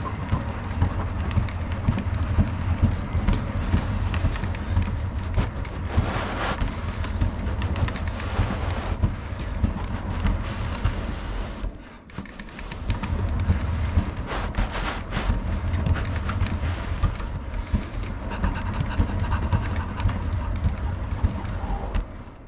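Carpeted cat exercise wheel turning under a walking cat: a steady low rolling rumble with light knocks and scuffs. It stops briefly about halfway through, then starts again and stops near the end.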